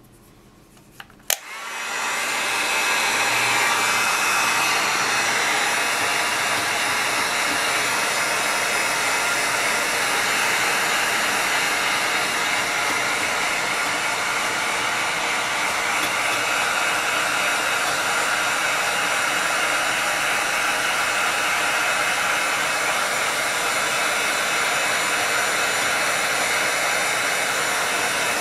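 Handheld electric heat gun switched on with a click about a second in, its fan spinning up and then blowing steadily.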